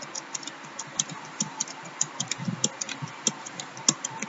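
Computer keyboard keys clicking in an uneven rhythm, several keystrokes a second, as single digits and the Enter key are typed in one after another.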